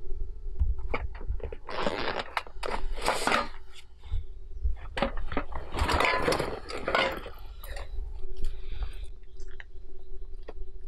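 Rustling and crunching of dry forest litter (pine needles and twigs), in two louder spells of a second or two each, with scattered snaps and clicks between them.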